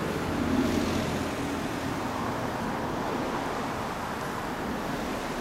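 1995 Yamaha XJR400R's air-cooled inline-four engine idling steadily through an aftermarket exhaust muffler, a little louder for a moment about half a second in.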